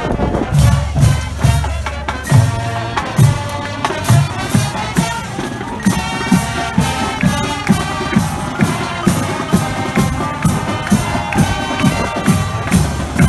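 High school marching band playing its fight song: brass over a drumline, with a steady beat of bass-drum and snare strokes.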